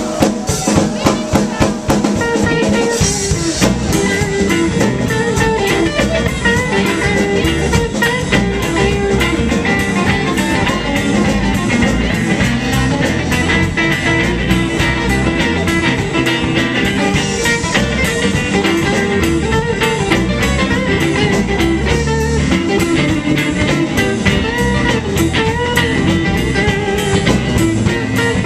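Live blues band playing an instrumental passage: electric guitar over bass guitar and a Pearl drum kit keeping a steady beat.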